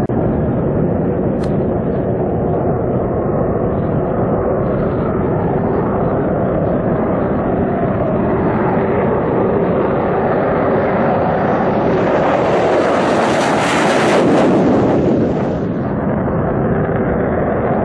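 Eurofighter Typhoon's twin EJ200 turbofans at takeoff power on the takeoff roll: a steady jet roar that swells and grows brighter as the fighter comes past, then drops away sharply about three-quarters of the way through.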